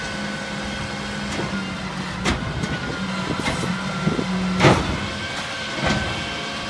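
Peterbilt 310 garbage truck idling with a steady hum, while the Heil rear loader's hopper gives several sharp metal clanks as recycling carts are worked at the back; the loudest clank comes about two-thirds of the way through.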